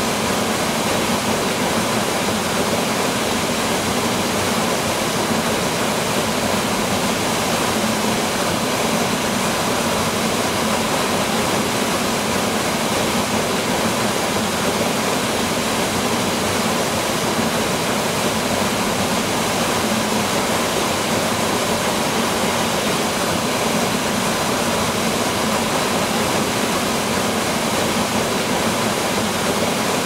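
Small waterfall pouring over a rock ledge into a shallow pool: a steady, unbroken rush of falling and splashing water.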